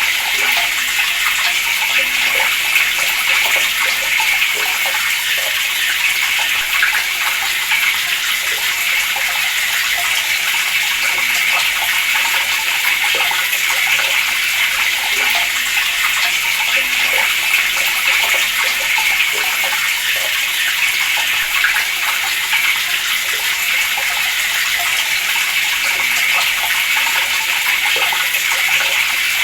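Water running steadily from a tap in a continuous stream.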